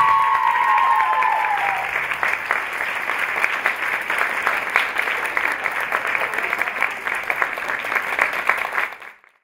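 Audience applauding with many hands clapping, with a few high cheers over the first two seconds. The sound cuts off abruptly near the end.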